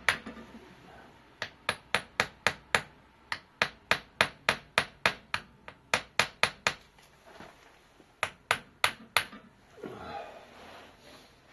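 Small hammer lightly tapping a Woodruff key down into its groove on a Subaru Impreza gearbox shaft. The sharp taps come in runs of several, about three a second, with short pauses between the runs.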